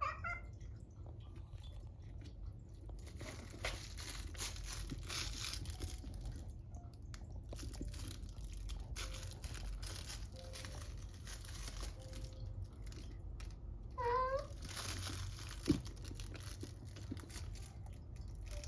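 A pet cat gives short, odd, wavering cries while playing with a toy: one right at the start and another about fourteen seconds in. Between them comes crinkling and rustling as the toy is handled.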